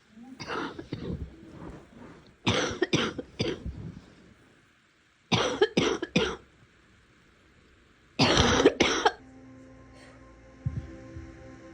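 A person coughing wet coughs in four bouts of two to four coughs each, with short pauses between bouts.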